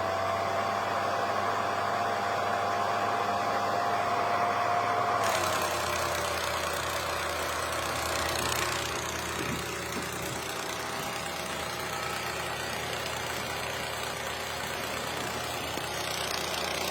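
Revere Model 80 8mm film projector running, its motor and cooling fan whirring with a steady whine. About five seconds in, the whine dips slightly in pitch as the motor slows under the speed control knob. The projector is freshly oiled and fitted with a replacement fan.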